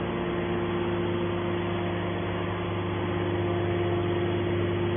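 Hydraulic can baler's motor and pump running steadily: a constant mechanical hum with a steady mid-pitched tone and no change in speed.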